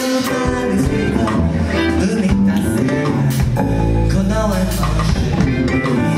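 Live band music: electric guitar, bass guitar and drum kit playing a busy, intricate passage, with a long held low bass note about four seconds in.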